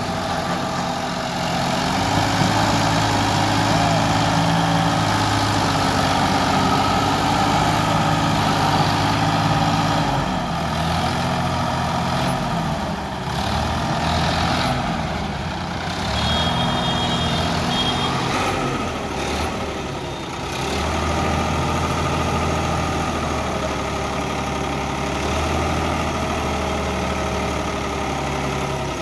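Sonalika tractor's diesel engine running under load as its hydraulic tipper raises a trolley full of soil; the engine note holds steady at first, shifts up and down several times around the middle, then settles again.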